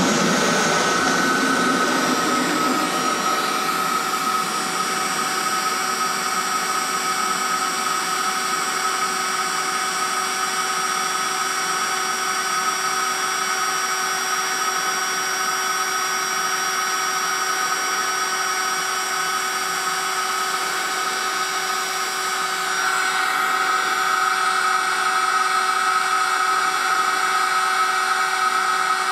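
Cordless heat gun running steadily: its fan motor gives a constant whine of several steady tones, growing a little louder about three-quarters of the way through.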